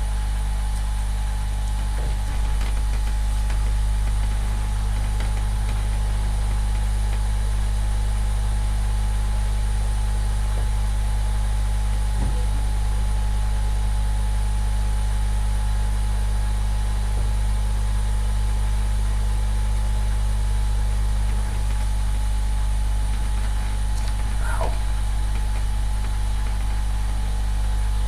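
Steady low hum with a few faint, brief clicks scattered through it.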